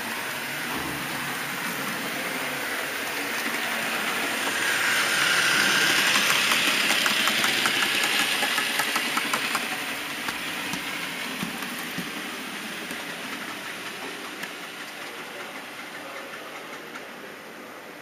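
Model train running along the track: a rushing hiss with quick clicking of wheels over the rails. It swells louder for several seconds about a third of the way in, then slowly fades.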